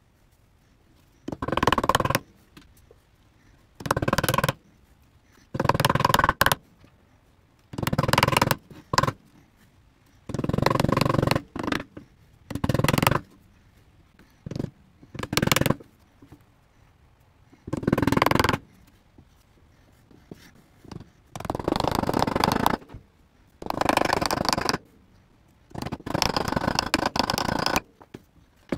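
Hand saw rasping in short runs of strokes, about a dozen bursts with pauses between them, as glued wooden plugs are trimmed flush with the sides of a wooden box. The last few runs are longer.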